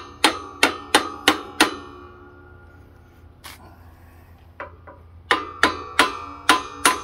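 A hammer tapping on a steel socket to drive a new bearing into a scooter's transmission case. The metal strikes ring and come about three a second: a run of six, a single strike partway through, then a second run near the end.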